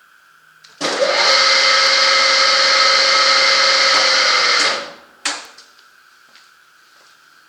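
Howa Sangyo L-150 engine lathe's geared headstock running: the spindle starts about a second in, runs for about four seconds with a steady gear whine, then spins down. A single sharp clunk follows.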